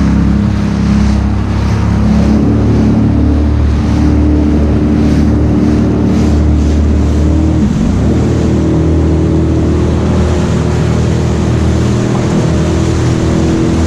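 Jet ski engine running under way, its pitch shifting a couple of times as the throttle changes, with water splashing against the hull.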